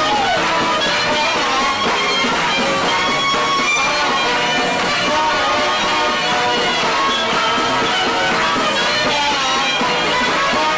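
A live band playing a tune, with piano, fiddle, double bass and small handheld wind instruments on stage.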